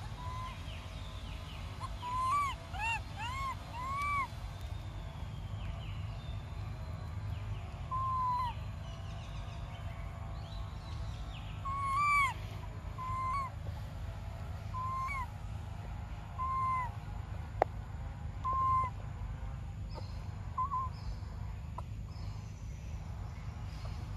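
Infant macaque giving short, rising-then-falling whimpering coo calls over and over, several in quick succession about two seconds in and then single ones every second or two: an infant's cries to nurse. A sharp click sounds once in the second half.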